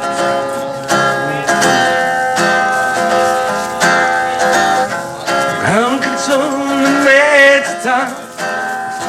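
Acoustic guitar strumming chords at a live performance, a song's intro before the vocals come in. Around the middle a pitched sound slides up steeply and then wavers.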